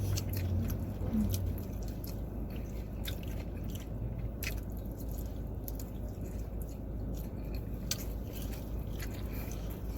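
A person chewing food close to the microphone: wet mouth clicks and smacks scattered throughout, over a steady low hum.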